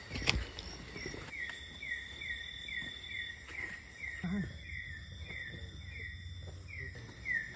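Forest animal chorus: a short falling chirp repeating steadily about three times a second, over a steady high-pitched insect-like drone that comes and goes. A single sharp knock sounds just after the start.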